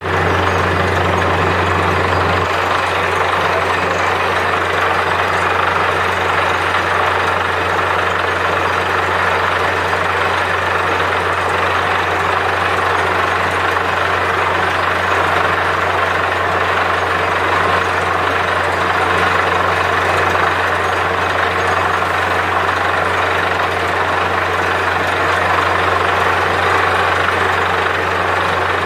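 Truck-mounted borewell drilling rig running steadily as it drills: a loud low engine hum under a broad rushing noise of air and water being blown out of the borehole. The low hum eases slightly about two seconds in.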